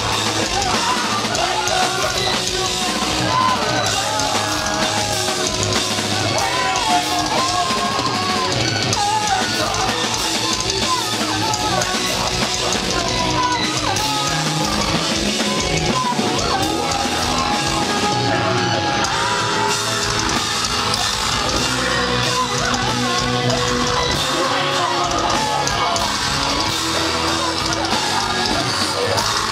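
A live hardcore band playing loudly, with electric guitars, a drum kit and yelled vocals.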